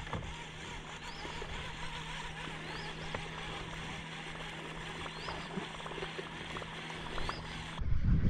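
Steady low hum of a boat motor under an even hiss, with a faint short high chirp about every two seconds and a few light clicks. Near the end it cuts off abruptly to a loud rumble of wind on the microphone.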